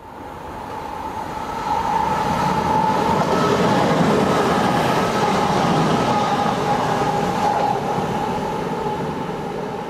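Class 185 diesel multiple unit passing close at speed, its engine and wheels on the rails growing louder to a peak about two seconds in, holding, then slowly fading. A steady whine runs through the pass.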